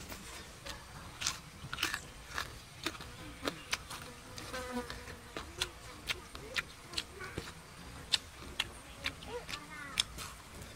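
Close-up mouth sounds of a person biting and chewing grilled crocodile meat: irregular sharp wet clicks and smacks, roughly two a second.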